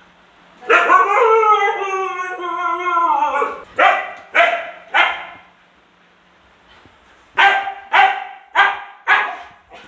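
Siberian husky giving one long, wavering howl that falls in pitch, then short barks: three about half a second apart, a pause, and four more at the same pace.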